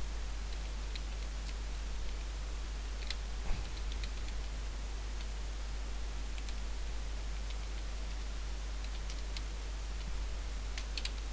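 Computer keyboard keys clicking faintly, a few scattered keystrokes, over a steady hiss and low hum.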